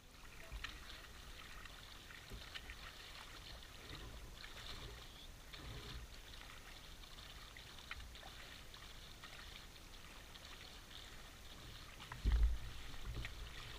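Faint water trickling and lapping around a kayak hull in shallow river water, with light ticks and small splashes. A short low thump comes near the end.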